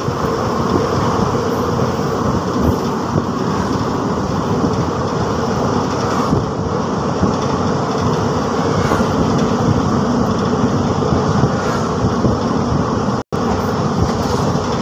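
Steady running noise of a passenger train coach at speed: the rumble and clatter of wheels on the rails, heard from the open coach door. The sound drops out for an instant near the end.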